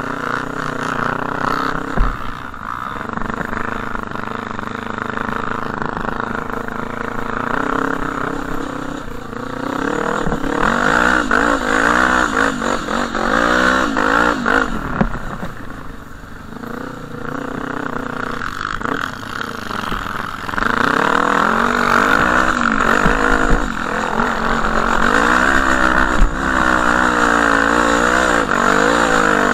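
Off-road vehicle's engine, heard from the rider's helmet, revving up and down repeatedly as it is ridden over sand and bumps, getting louder from about twenty seconds in.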